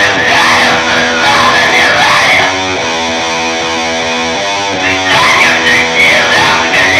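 Band music led by electric guitar, with held chords that change every second or two.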